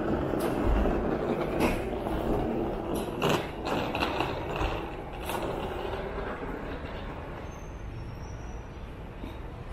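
A motor vehicle passing in the street, its engine and road noise loudest in the first few seconds and then fading away, with scattered sharp clicks.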